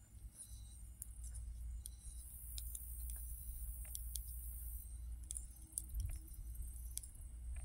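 Knitting needles clicking and tapping together in quick, irregular ticks as stitches are worked, over a low steady rumble.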